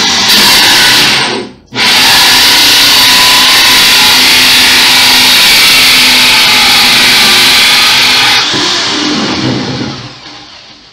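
Corded electric drill driving a hole saw through a wooden board, the motor running at full speed. It stops for a moment about a second and a half in, starts again and runs steadily, then winds down from about eight seconds in as the cut is finished.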